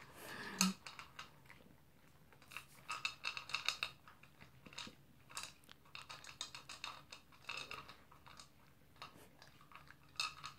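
A small dog eating from its food bowl: irregular runs of crunchy chewing, heard as clusters of quick clicks a second or two apart.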